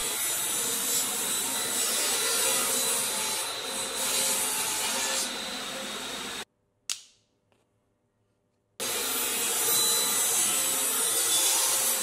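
Table saw running and cutting phenol-coated plywood, a steady sawing noise. It cuts off abruptly about six and a half seconds in, a single short knock follows, and after about two seconds of silence the same steady noise returns.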